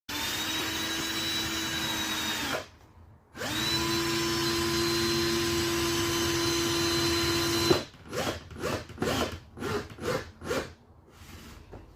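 A handheld power tool cutting skirting board, running with a steady whine for about two and a half seconds, stopping, then running again for about four seconds. After that come several short bursts in quick succession.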